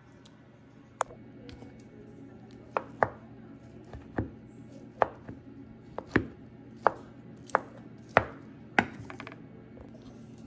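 Chef's knife chopping boiled chicken breast on a wooden cutting board: sharp knocks of the blade on the board, irregular, about one a second, stopping near the end.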